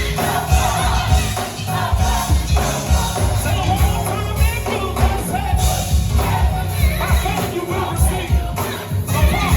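Gospel choir singing with a live band: a steady, driving beat of drums and bass, with tambourine.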